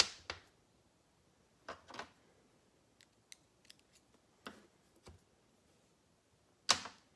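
Small steel parts of a BMW M52 lifter clicking and clinking as the lifter is taken apart with a small pick to change its shim stack: a scattered string of sharp clicks, the loudest near the end.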